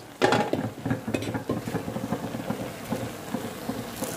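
Green beans and tofu frying in a wok, a steady sizzle with many small crackles, and a louder knock just after the start.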